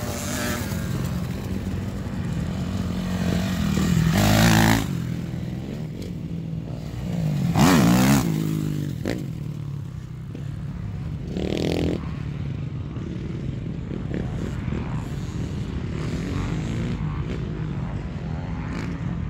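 Dirt bike engines running steadily, with bikes revving loudly as they pass close about four seconds in and again about eight seconds in, their pitch swinging up and down.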